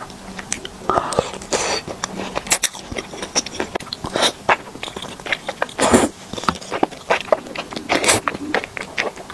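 Close-up mouth sounds of a person slurping and chewing thick, chewy sweet-potato starch noodles (fen haozi) coated in spicy sauce: a run of wet smacking clicks, with louder slurps about six and eight seconds in.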